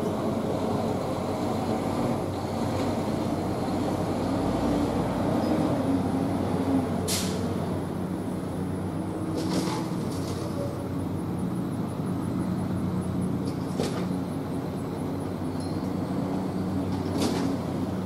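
W. S. Darley Champion mechanical warning siren coasting at low speed after its test, its rotor giving a low drone. Four brief sharp sounds break in during it.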